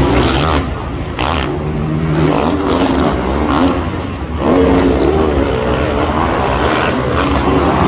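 Motocross bike engines revving up and down repeatedly as riders race around the dirt track, with a brief dip about four seconds in before the engines come back louder.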